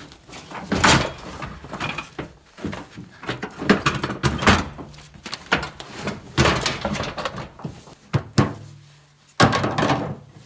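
Irregular knocks, thuds and clatter of a pickup tailgate and tools being handled on a workbench.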